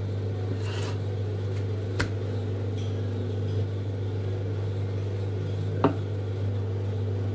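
Steady low mechanical hum with two sharp clicks, one about two seconds in and another about six seconds in.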